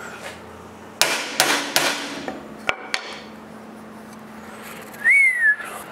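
A series of sharp wooden knocks and clatter as the strips of a half-lap miter muntin assembly are handled and pressed together on a table saw's metal top. Near the end comes a short high squeak that rises, then falls, in pitch.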